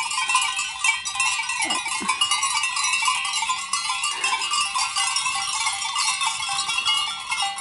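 Many sheep bells clanking and ringing without pause around a grazing flock, with a sheep bleating briefly about two seconds in.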